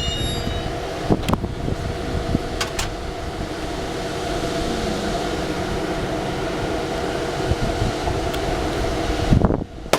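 Passenger rail car rolling along the track: a steady rumble with a faint held tone and a few sharp clicks, breaking off abruptly just before the end.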